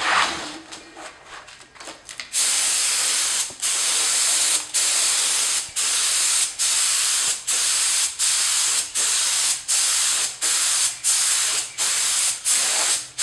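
Harbor Freight Central Pneumatic HVLP spray gun, fed by an air compressor and its tip drilled out to 5/64 inch, spraying thick Benjamin Moore Advance paint. From about two seconds in it gives a long run of loud hissing bursts, each under a second, with short breaks between. A few light clicks and handling sounds come before the spraying starts.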